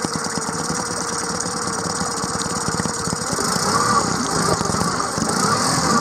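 Small outboard motor running just after starting, warming up at a steady idle, with its speed rising and falling briefly a couple of times in the second half as the throttle is worked in neutral.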